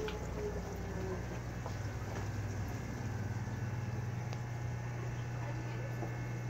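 Steady low hum of a small pump over a faint wash of trickling water.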